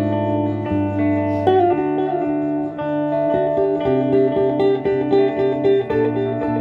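Two guitars, at least one of them electric, played together: held low notes and chords, joined about halfway through by a quick repeated picked figure of about four notes a second.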